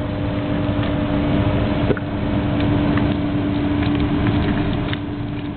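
Steady mechanical hum of kitchen machinery with a constant low tone, with a few faint clicks and clinks scattered through it; it fades a little near the end.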